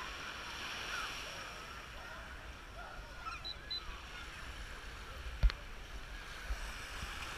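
Busy beach ambience: small waves washing in at the shoreline under a steady murmur of a crowd, with faint distant voices and children's shouts. A single sharp knock about five and a half seconds in.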